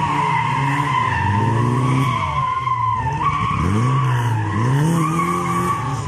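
Ford Sierra rally car's engine revving hard and dropping back several times through the gears as the car slides through a hairpin. A steady high tyre squeal from the skid runs over the engine.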